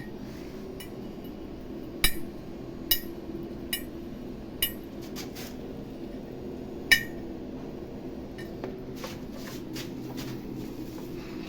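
About half a dozen sharp metallic clinks of steel being struck, each ringing briefly, the loudest about two and seven seconds in, over a steady low electrical hum.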